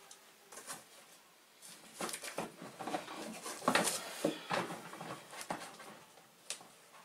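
Irregular rustling and light clicks of packaging being handled, as someone rummages in a cardboard box for the next part; most of it falls in the middle few seconds.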